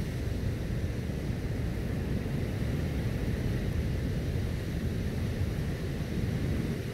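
Steady low rumble of wind buffeting the microphone, with the wash of surf behind it.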